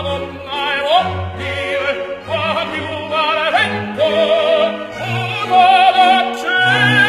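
Operatic singing with a wide vibrato on long held notes over orchestral accompaniment, moving to a long high held note near the end.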